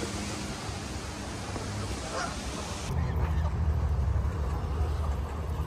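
Canada geese honking, with a low steady rumble setting in about three seconds in.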